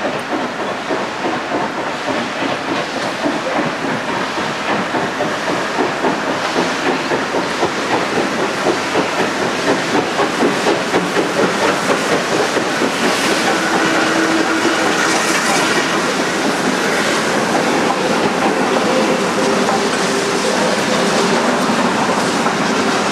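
Two steam locomotives, an N7 tank and a USA S160, double-heading a train as it approaches. Their exhaust beats form a steady rhythm that grows louder, then blends into a continuous loud working sound as the train draws near.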